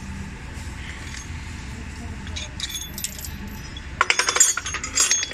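Metal tools and bolts clinking on the cylinder head of a truck's air brake compressor as it is being unbolted and opened. There are a few scattered clinks, then a quick flurry of clinks about four seconds in and another just before the end, over a steady low hum.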